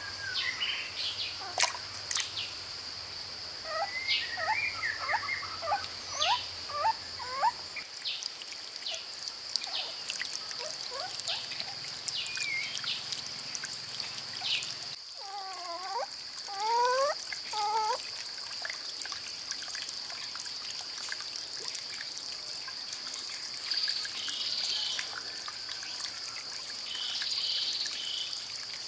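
A steady high-pitched insect drone with two runs of short bird chirps, about four and sixteen seconds in, and a few sharp clicks near the start.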